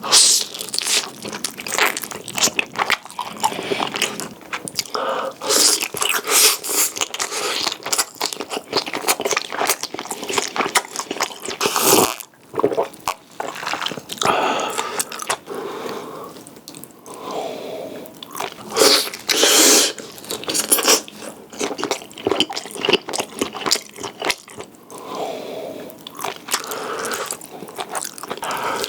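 Close-miked eating sounds: one person biting and chewing food, with crunchy bites in irregular bursts.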